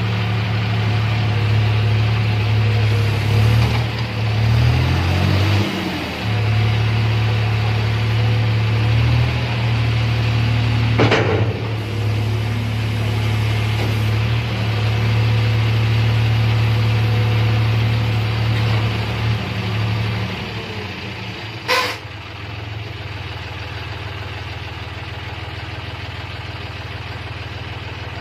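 John Deere 5310 tractor's three-cylinder diesel engine running steadily. Its note dips and recovers a few times in the first ten seconds. Two sharp knocks come about 11 and 22 seconds in, and the engine then runs on more quietly.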